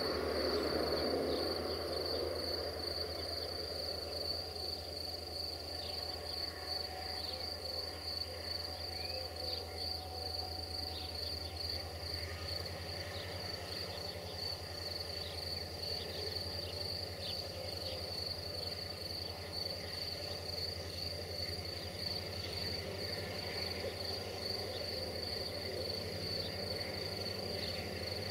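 Crickets trilling steadily in a high, pulsing chirr, over the low steady hum of a diesel locomotive's engine running.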